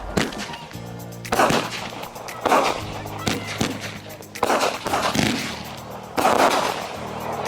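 Consumer mini firework cake firing its shots one after another: a loud burst about once a second, each trailing off briefly.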